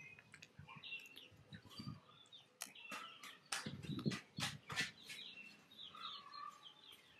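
Faint bird chirping in short, quick, high calls, with a run of sharp soft clicks in the middle from a baby macaque sucking at a milk bottle.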